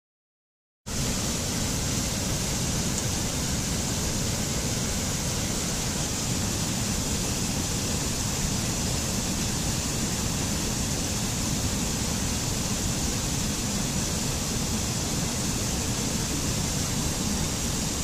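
Rushing water of a mountain stream cascading over rocks: a steady, even rush that starts abruptly about a second in.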